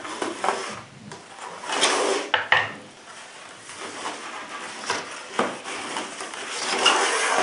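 Clear plastic clamshell packaging being pried open and handled: crinkling and rustling of stiff plastic and cardboard, broken by a few sharp clicks and knocks as the holster and its backing card are pulled out.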